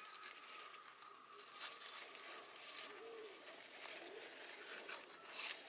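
Near silence: faint outdoor quiet with a few soft clicks.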